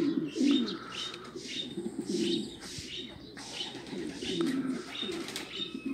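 Domestic pigeons cooing, with repeated low coos from several birds overlapping, and light pecking taps on concrete as they take bread crumbs.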